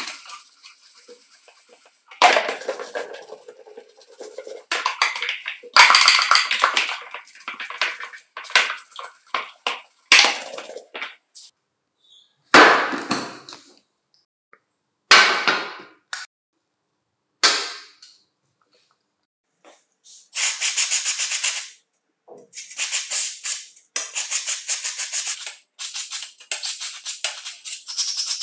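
Stiff brush scrubbing plastic pencil-sharpener parts in soapy water, then, in the second half, long hissing bursts of an aerosol spray cleaner fired through a straw nozzle at a small worm gear.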